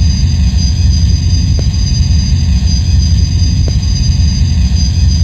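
Small brushed electric motor (Johnson 250) and propeller of an RC flying wing running at steady speed: a constant high whine over a heavy, steady low rumble.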